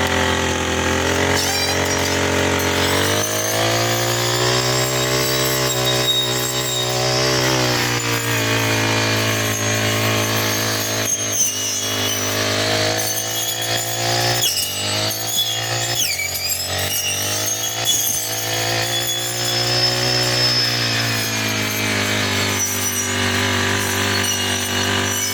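Four-stroke brush cutter engine running while cutting grass, its pitch rising and falling as the throttle is opened and eased: it speeds up about three seconds in, dips briefly past the middle and drops again near the end.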